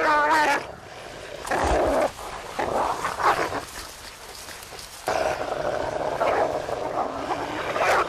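Wolves growling and snarling at one another while feeding on a kill. A wavering whine at the start, short bouts of snarling after it, then steady growling from about five seconds in.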